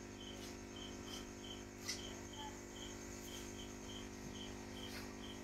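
A cricket chirping faintly and steadily, about three short high chirps a second, over a steady low hum from the aquarium's air pump.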